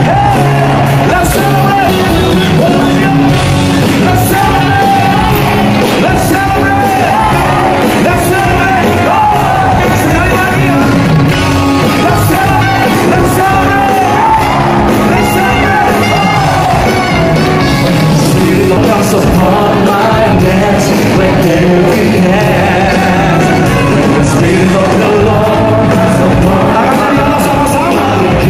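Loud live worship music with a congregation singing along in a large hall, with occasional shouts from the crowd.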